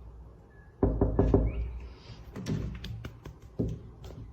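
A quick run of loud knocks and thumps about a second in, followed by scattered lighter taps and clicks.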